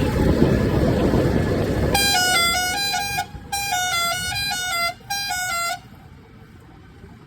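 A musical vehicle horn plays a short tune of stepping notes in three phrases, after about two seconds of loud engine and road noise. Near the end the noise drops and stays low.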